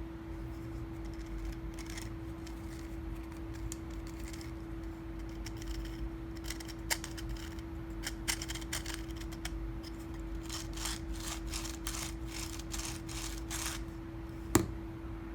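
Clicking and rattling of a 3D-printed plastic ball bearing being handled, its 5 mm bead balls ticking in the cage in quick runs from about halfway through, then one sharp knock near the end. A steady hum runs underneath.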